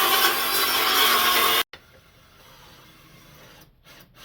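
Small power saw cutting wood, a loud steady noise that stops abruptly about a second and a half in, followed by quiet room sound.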